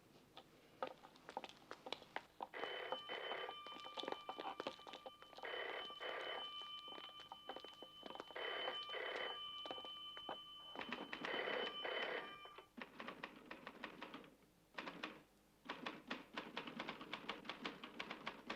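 Telephone ringing in double rings, four rings about three seconds apart, then stopping about two-thirds of the way in, with scattered clicks and knocks throughout.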